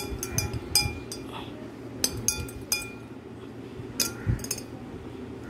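Metal spoon stirring tea in a glass tumbler, clinking against the glass in three bunches of quick ringing clinks, the last about four seconds in.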